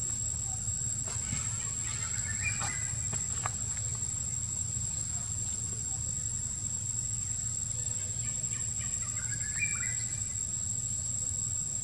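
Steady high-pitched drone of insects, with a low rumble underneath. Two brief bursts of chirping calls come through, about two seconds in and again about nine seconds in.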